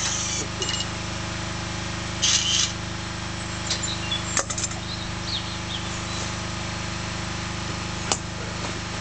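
Steady machine hum with two short hissing, crackling welding bursts, one at the start and one about two seconds in, and a couple of sharp clicks later on.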